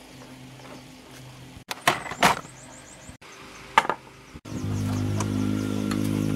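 A few sharp knocks, like tools striking metal, then from about four and a half seconds in a louder steady hum.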